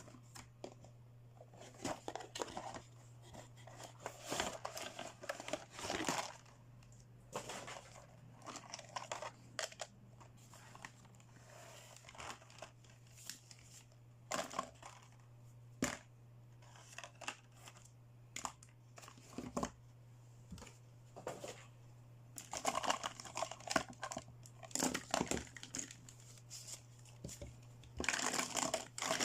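Plastic toy packaging crinkling and tearing in irregular bursts, with sharp clicks of small plastic pieces being handled, over a steady low hum.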